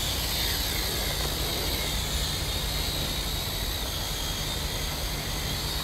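Lishitoys L6052 toy quadcopter's small electric motors and propellers whining in flight, the high whine wavering in pitch as the throttle changes. Under it is a steady low wind rumble on the microphone.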